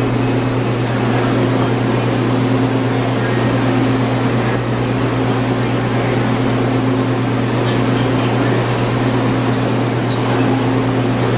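MARTA rapid-transit railcar standing at the platform with its doors open, its on-board equipment giving a steady low hum with a fainter higher tone that comes and goes.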